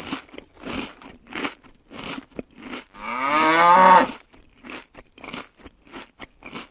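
A cow moos once, a long call of about a second about three seconds in, over a steady run of short crunching clicks, about three a second.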